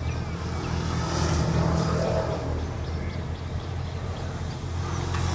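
A steady low engine-like drone.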